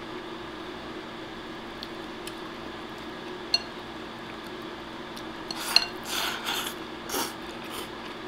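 Chopsticks tapping and scraping a ceramic donburi bowl while eating rice topped with egg. There is a sharp, ringing click about three and a half seconds in and another near six seconds, then short scraping and mouth sounds as rice is shovelled from the bowl.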